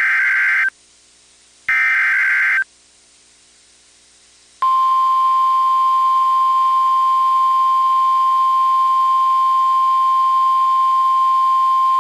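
NOAA Weather Radio SAME (Specific Area Message Encoding) header: the last two of its three one-second digital data bursts, each the same raspy electronic squawk. About four and a half seconds in, the steady 1050 Hz warning alarm tone begins, marking the start of a new warning broadcast.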